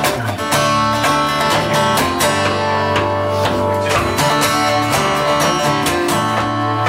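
Acoustic guitar strummed in a steady rhythm, playing the instrumental introduction to a folk song.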